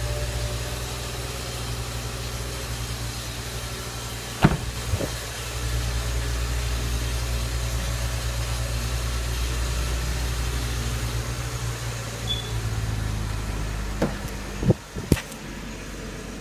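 BMW F10 5 Series engine idling with a steady low hum that grows louder about five and a half seconds in and eases back after about twelve seconds. Sharp clicks or knocks come twice about four and a half seconds in and several more times near the end.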